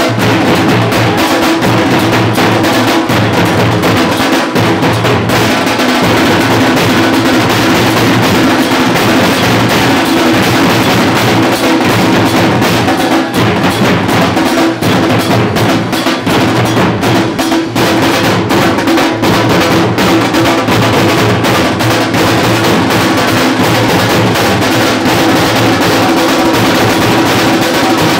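Large dhol drums beaten with sticks, together with brass hand cymbals, playing loud, continuous procession drumming.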